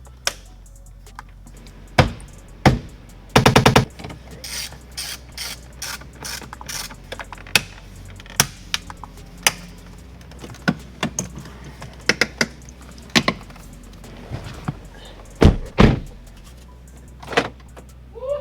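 Clicks and clunks from a BMW E91 passenger door being reassembled and its handle and latch tried, with a quick run of rapid clicks about three and a half seconds in and two loud clunks near the end. Background music plays underneath.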